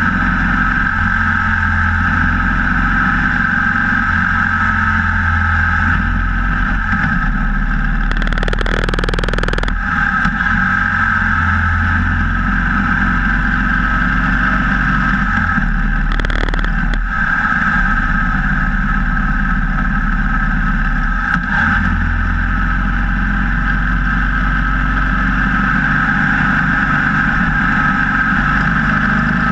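Cruiser motorcycle engine running steadily at road speed, heard from a camera mounted low by the front wheel, with wind rush over the mount. Two short bursts of rushing noise stand out, about nine and sixteen seconds in.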